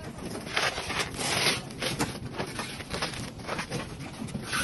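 Hexagonal sawdust-charcoal briquettes being handled into a plastic-lined cardboard box: irregular rustling and scraping of the sticks, plastic and cardboard, with small knocks. The loudest rustle comes about a second in.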